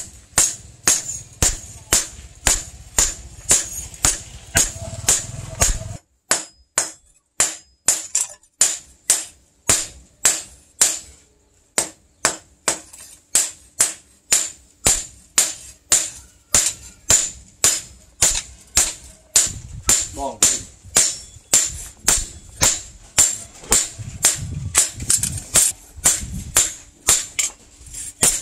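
Blacksmith's hand hammer striking a steel knife blade on an anvil, about two blows a second, each with a bright metallic ring, as the blade is forged. The hammering breaks off briefly twice.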